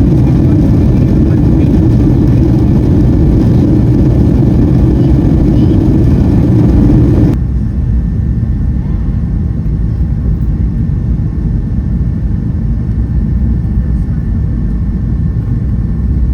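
Boeing 757-200 cabin noise: a loud, steady roar of the engines and airflow during the climb, which cuts off abruptly about seven seconds in to a quieter, steady cabin rumble on the approach.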